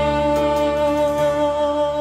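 Instrumental break in a slow Cambodian pop ballad: long, steady held notes over sustained backing, with no singing.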